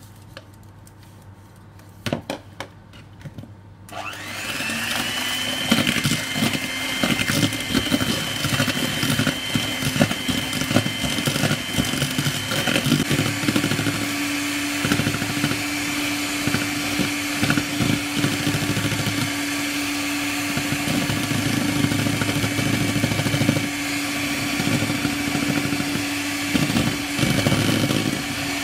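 A few light knocks, then about four seconds in an electric hand mixer starts and runs steadily, its wire beaters whipping egg whites and sugar into meringue, with frequent clicking of the beaters against the bowl.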